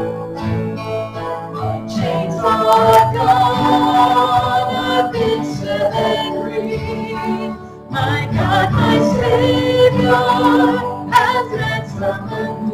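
A woman sings a hymn with vibrato, accompanied by guitar.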